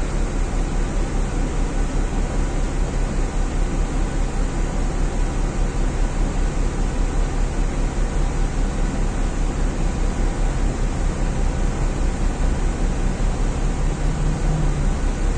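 Dennis Dart single-deck bus's diesel engine idling steadily with the bus at a standstill, heard from inside the passenger saloon.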